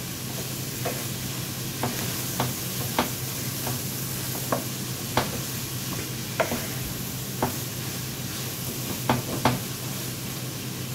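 Corn frying in a nonstick skillet with a steady sizzle, stirred with a wooden spatula that knocks and scrapes against the pan about a dozen times at an uneven pace.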